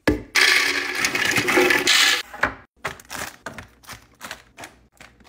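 Dry food poured into a pantry container in a rattling stream for about two seconds, followed by a string of light clicks and taps.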